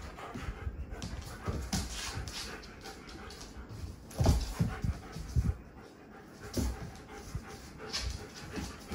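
Two German shepherds play-wrestling on a hard floor: panting and scuffling, with a few louder bumps about halfway through.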